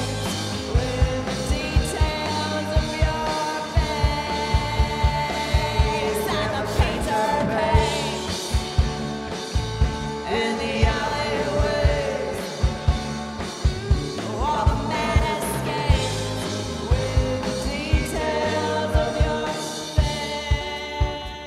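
Live rock band playing a passage without words: a drum kit keeps a steady beat under sustained lead lines that glide up and down in pitch.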